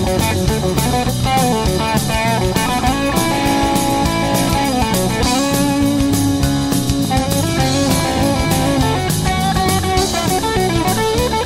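Rock song in an instrumental passage without vocals: electric guitar playing melodic lines with bends, over a steady drum kit beat and bass.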